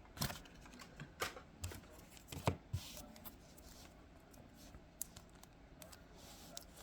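Trading cards being handled and flipped through: soft rustling of card stock with a few scattered light clicks and taps.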